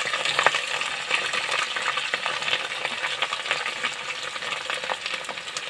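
Sliced onions frying in hot oil in an iron kadhai: a dense sizzle full of small crackles, loudest as they go in and gradually growing quieter.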